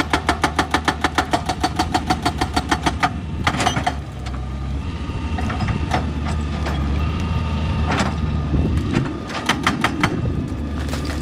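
Excavator-mounted hydraulic rock breaker hammering rapidly, about nine blows a second, stopping about three seconds in. Then the excavator's diesel engine runs, with a few short runs of hammering near the end.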